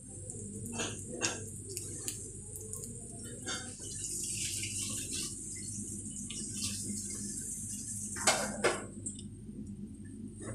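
Cabbage omelette frying in oil in a non-stick pan, sizzling steadily with scattered crackles and pops, the loudest two close together about eight seconds in. A low steady hum runs underneath.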